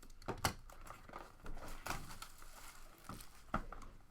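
Packaging crinkling and trading cards being handled as a card box is opened: a string of short rustles and taps, the sharpest about half a second in and again after three and a half seconds.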